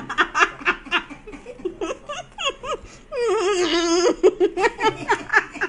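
Laughter in quick bursts, with one long, wavering, drawn-out note about three seconds in.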